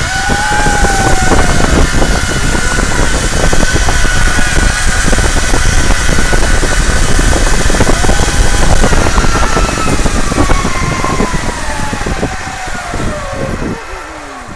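Rush of wind on the microphone with the whine of a zipline trolley's pulleys running along the steel cable. The whine holds steady, then falls in pitch while the rush dies down over the last few seconds as the riders slow to a stop.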